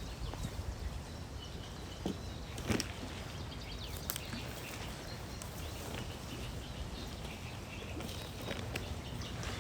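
Outdoor lakeside ambience: a steady low rumble with a few sharp clicks and rustles, and faint bird chirps.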